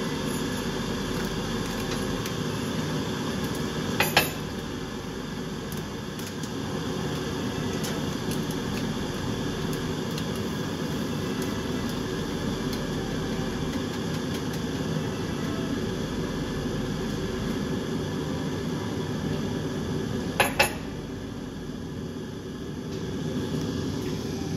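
Mug and utensils handled while a drink is made, with two sharp clinks, one about four seconds in and one near the end, over a steady hum.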